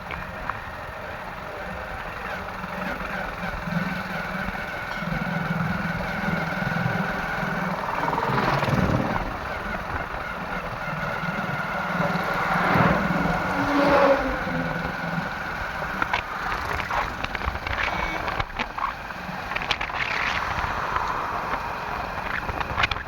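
Motor vehicle and machinery engines running at a construction site, a steady engine drone that swells louder about eight seconds in and again about thirteen seconds in.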